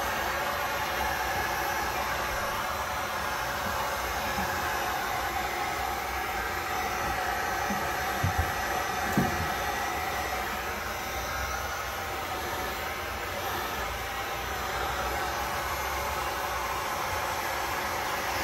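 Electric heat gun with a flat concentrator nozzle running steadily, a constant blowing hiss with a faint steady whine, as it dries a joint-compound patch. Two brief faint sounds come about eight and nine seconds in.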